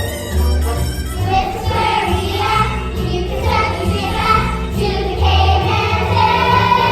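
Children's choir singing a stage-musical song over a backing track with a steady bass line.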